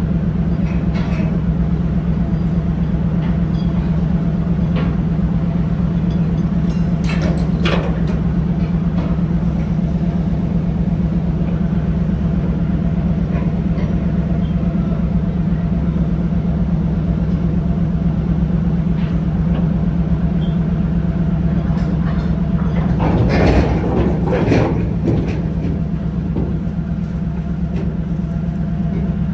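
Fishing trawler's engine running with a steady low drone and a faint steady tone above it. A few knocks sound about seven to eight seconds in, and a louder run of metallic knocking and rattling comes about 23 seconds in, lasting a couple of seconds.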